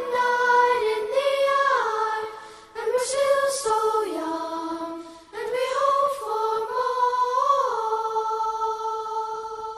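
A young man and a young woman singing together unaccompanied. They sing a few phrases with slides between notes and end on one long held note that fades away.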